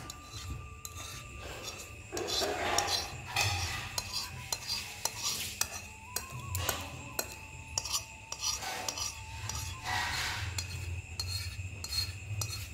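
A wire whisk scraping thick batter out of a steel mixing bowl into an aluminium pressure-cooker pot, with irregular scrapes and light metal clinks against the bowl's rim.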